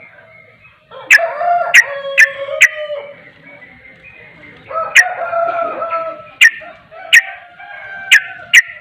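Yellow-vented bulbul (trucukan) singing its rapid, bubbly, chattering song in two bursts, each phrase punctuated by sharp, loud clicking notes.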